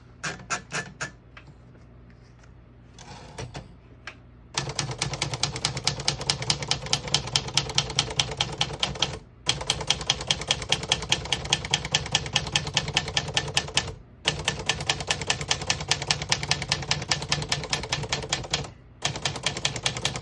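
1964 Underwood 319 manual portable typewriter being typed on: a few scattered key strikes, then from about four and a half seconds in a fast, even run of keystrokes, broken by three short pauses.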